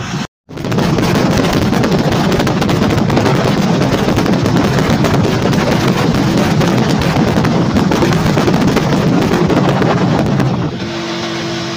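Wind buffeting the microphone on a moving vehicle: a loud, dense, crackling rush. It comes in after a split second of silence and drops off sharply near the end.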